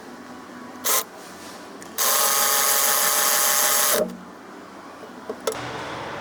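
Handheld power tool run in a brief blip, then held on for about two seconds in one steady whine, as fasteners are run in. A couple of light clicks and a steady low hum follow near the end.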